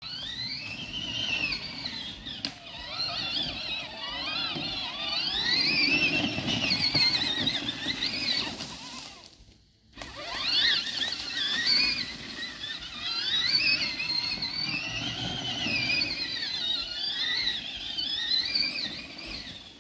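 Electric motor and gearbox of a Huffy Torex kids' ATV whining as it is driven, the pitch rising and falling with speed over a rumble of tyres on the ground. The whine fades out and stops just before halfway, then climbs steeply in pitch as the quad pulls away again.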